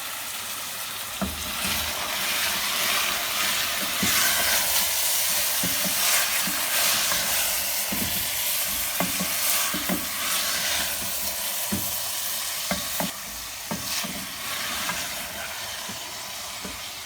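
Beef keema, tomatoes and ground spices sizzling as they fry in a pot. A spoon stirs through the mince, with frequent short clicks and scrapes against the pot.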